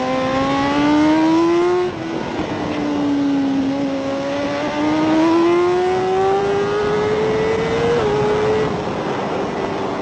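BMW superbike's inline-four racing engine accelerating hard onboard, rising in pitch, with quick upshifts about two seconds in and again about eight seconds in. Wind rushes over the bike throughout.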